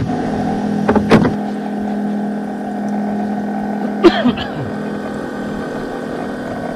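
Steady mechanical hum of a motor on a small fishing boat, with sharp knocks about one second in and again about four seconds in.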